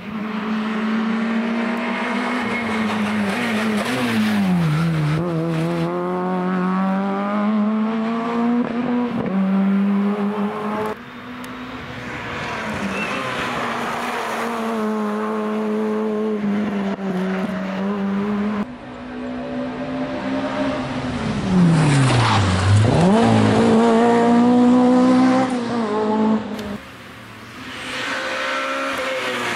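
Rally cars driven hard on a closed stage, one after another: engines revving up through the gears, lifting off and picking up again, with a deep dip and climb in pitch about two thirds of the way in. The sound is loud throughout, with abrupt changes where one car gives way to the next.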